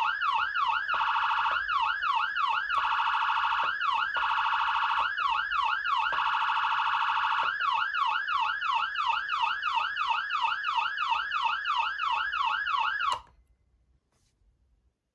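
Whelen ALPHA electronic siren amplifier sounding a yelp tone that sweeps up and down about four times a second. It twice switches briefly to a much faster warble, then cuts off suddenly near the end.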